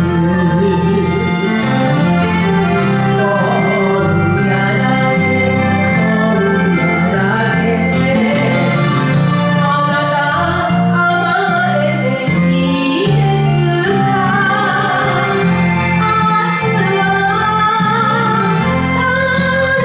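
A woman singing an enka ballad in Japanese over a karaoke backing track, her voice wavering with vibrato on the held notes.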